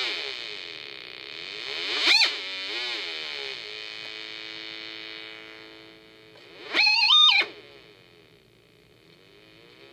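Buzzy electronic tone from a CD40106 Schmitt-trigger oscillator played through an LM386 amplifier into a small speaker. Its pitch glides up and down and holds steady for a few seconds as the potentiometer is turned. It jumps to two brief, loud, high squeals, about two seconds in and about seven seconds in, and turns quieter near the end.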